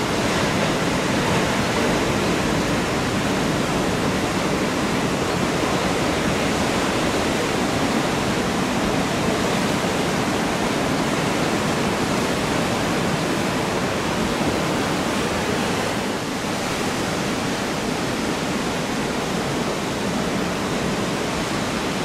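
Ocean surf washing steadily, a dense even noise with no single wave breaks standing out.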